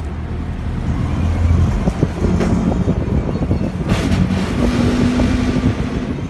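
Aquarium filter running: a low hum with water pouring and bubbling into the tank, crackling more densely from about two seconds in.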